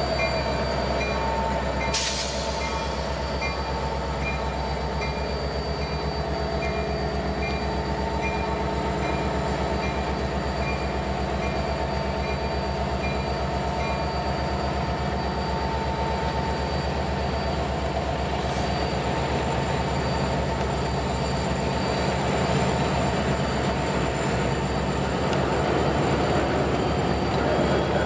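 Union Pacific freight train passing close by: a diesel locomotive goes by, then boxcars and a tank car rolling on the rails with steady wheel noise and a thin, high, steady squeal. There is a short sharp burst of noise about two seconds in.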